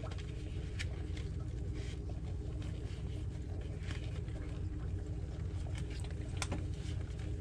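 Steady low mechanical hum with a few faint soft clicks and rustles as a flour tortilla is folded and wrapped on a paper plate.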